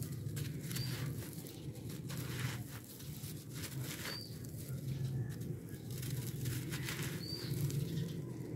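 Dry red dirt slab crumbled by hand, gritty soil and small pebbles crunching and trickling down in irregular patters, over a steady low hum. Three short high bird chirps, about a second in, near the middle and near the end.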